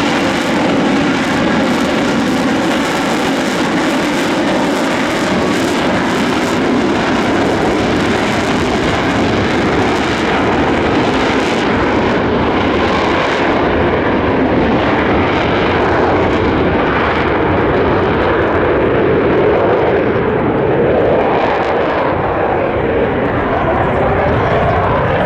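Jet noise from an RAF F-35B Lightning II's single Pratt & Whitney F135 turbofan, loud and continuous; from about halfway through, the high hiss fades and a lower rumble remains.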